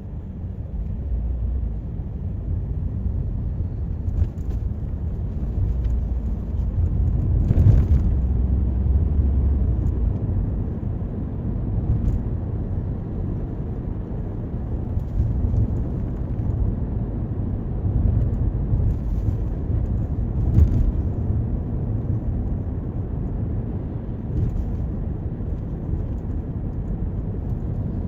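Toyota Corolla driving on city streets: a steady low rumble of tyres and engine, with a few brief knocks, the loudest about eight seconds in and another about twenty seconds in.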